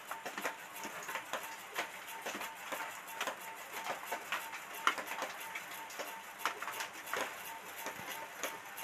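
Hands rubbing a spice marinade into raw katla fish steaks on a stainless-steel plate: irregular soft wet clicks and taps of fingers and fish against the metal.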